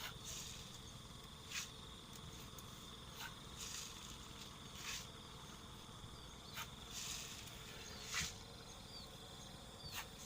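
Steady high-pitched drone of insects, with a few short, sharp rustling or clicking noises scattered through it.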